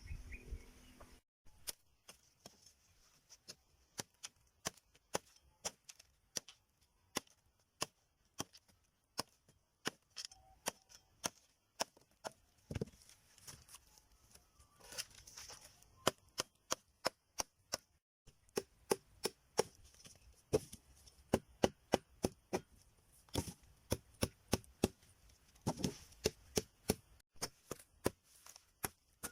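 Hand tools striking bamboo: sharp, dry knocks in irregular runs of about one to three a second, pausing briefly about a second in and again around the middle.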